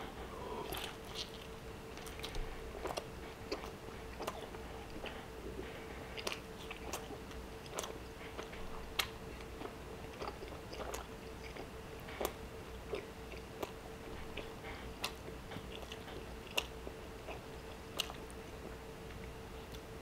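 A person biting and chewing a thick piece of grilled steak close to the microphone: irregular, wet mouth clicks and smacks. A faint steady hum runs underneath.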